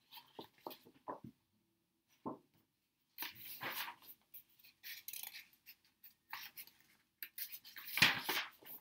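Pages of a hardcover picture book being turned by hand: paper rustling and flapping in a string of short, quiet bursts, the loudest about eight seconds in.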